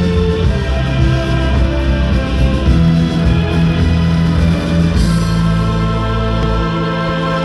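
Loud music led by guitar over sustained low bass notes. About five seconds in, a sudden noisy crash joins the music.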